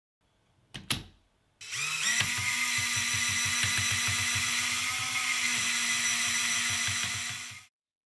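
A couple of short knocks, then a LEGO train's electric motor and gears start up, running with a steady whir and a rhythmic low pulsing as the train drives up a near-vertical track. It cuts off suddenly near the end.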